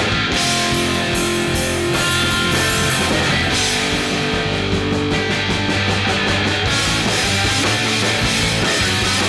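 Loud rock music played live by a band: electric bass and a drum kit pounding, with cymbals crashing.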